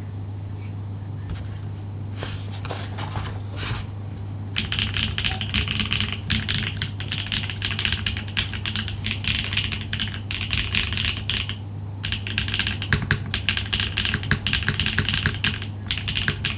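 Typing on a Neo80 mechanical keyboard with HMX Ice Lotus tactile switches, a POM plate, no internal foam and KKB Red Alert keycaps. A few scattered keystrokes come first, then fast continuous typing starts about four seconds in, with two brief pauses. A steady low hum runs underneath.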